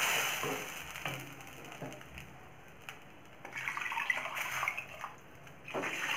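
Ground dal paste sizzling in hot oil in a steel kadai, the sizzle fading over the first two seconds. Then a wooden spatula scrapes and stirs the wet paste, with light knocks against the mixer jar and pan rim, and short scraping bursts about four seconds in and again near the end.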